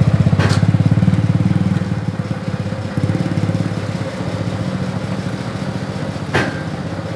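A heavy crane's diesel engine running with a rapid low throb, a little louder in the first two seconds and then settling. Two sharp knocks sound over it, one about half a second in and one near the end, the second ringing briefly like struck metal.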